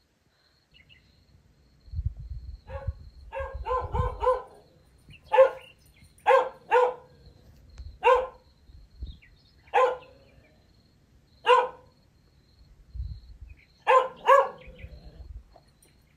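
A dog barking repeatedly just outside a tent at night, about a dozen short barks, some in quick runs of two to four, as it runs around the tent keeping guard.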